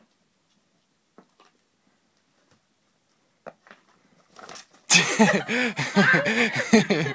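A few faint clicks, then about five seconds in a sudden burst of loud laughter in quick rapid bursts.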